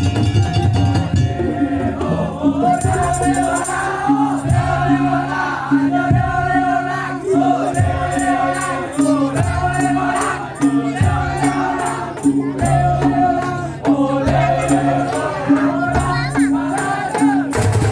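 Madurese daul (tongtong) music: drums and slit drums keep a steady beat under a wavering melody line.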